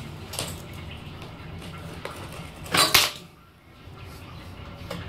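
Flexible drain rod knocking and scraping against the concrete sides of a drain inspection chamber as it is pushed into a sewer outlet blocked with tissue. There are a few sharp clicks and a loud double clatter about three seconds in, over a steady low hum.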